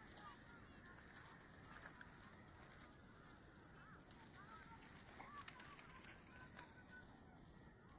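Scattered short bird calls over a steady high-pitched hiss, with a few sharp clicks about five to six seconds in.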